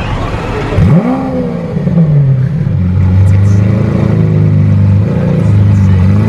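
Car engine revved sharply about a second in, its pitch sweeping up and falling back, then running at steady revs with a low, even note.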